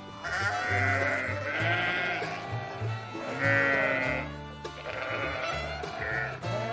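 Sheep bleating several times in a row, each bleat lasting about a second, over background music with a steady bass line.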